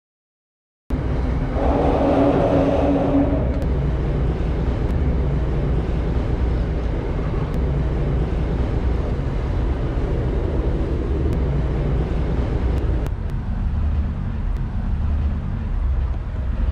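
Sea Ray Sundancer 370 motor yacht running underway: a steady engine drone under a rushing noise. It starts abruptly after a second of silence and turns duller about thirteen seconds in.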